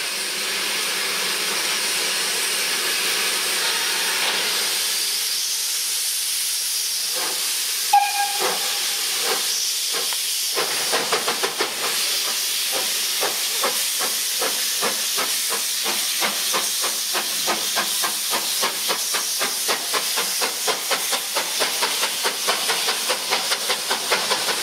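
Romanian steam tank locomotive 131.060 starting away with a train: steam hisses steadily at first, then a short whistle toot sounds about eight seconds in. The exhaust beats then begin, slow and spaced at first, and quicken steadily as the locomotive gathers speed with its cylinder cocks blowing steam.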